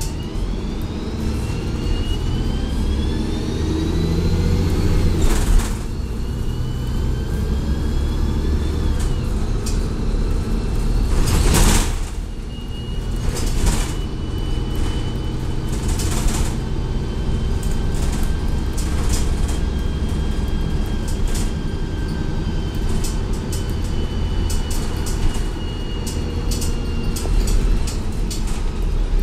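Diesel transit bus with a Cummins ISL engine and a Voith D864.3E automatic transmission running under way. Its whine rises in pitch, breaks off about five seconds in and rises again. A short, loud hiss of air comes about twelve seconds in, then the whine holds steady over a low rumble.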